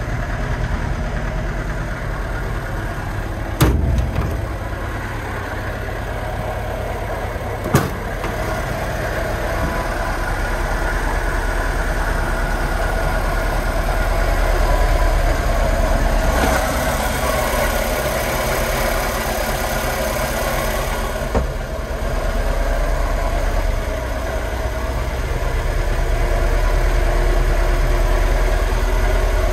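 Żuk A15 truck's four-cylinder petrol engine idling steadily, with a few sharp knocks over the top.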